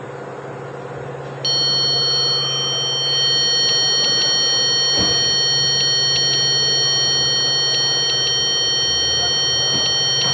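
A steady electronic buzzer tone switches on about a second and a half in and holds, with faint paired ticks every second or two over a low steady hum.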